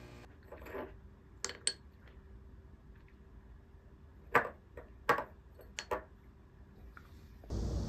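A small ceramic bowl of frozen blueberries being handled: several light, sharp clinks and taps of the bowl and the hard frozen berries as fingers pick them out. Near the end a louder steady outdoor rush begins.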